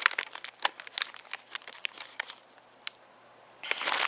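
Packaging crinkling and rustling as items are handled in a box: a run of short crackles, a pause with a single click, then dense crinkling again near the end.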